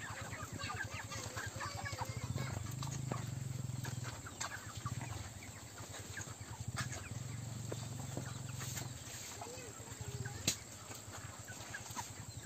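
A large flock of white broiler chickens peeping and clucking all at once, many short overlapping calls, with a low hum underneath that comes and goes. One sharp click about ten and a half seconds in.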